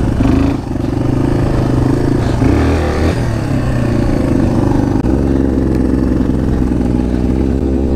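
Off-road motorcycle engine running close by at fairly steady, moderate revs as the bike rides over rough grass. The pitch briefly drops and comes back a couple of times.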